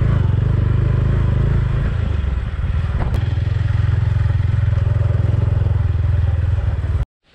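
Motorcycle engine running at a steady pitch, with a single sharp click about three seconds in. The sound starts and cuts off abruptly.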